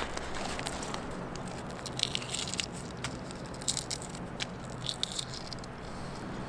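Footsteps crunching on frozen ground or snow, an irregular crackle with a crunchy step about every second or so.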